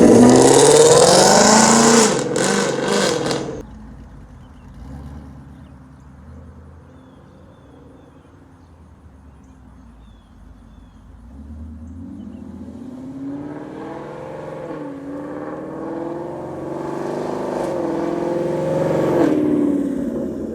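Ford Mustang GT's 5.0 V8, breathing through long-tube headers and a Borla catback exhaust, accelerating hard with its pitch climbing, cutting off abruptly about three and a half seconds in. After a quieter stretch, the engine is heard again from about halfway through, revving up louder with its pitch climbing in steps broken by brief dips.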